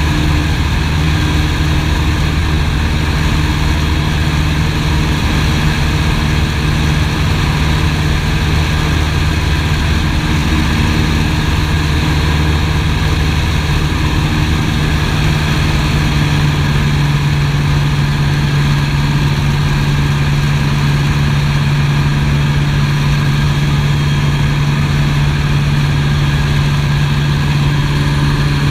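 Piper PA-18 Super Cub's piston engine and propeller droning steadily in flight, heard from inside the cockpit. Its low tone shifts slightly about halfway through.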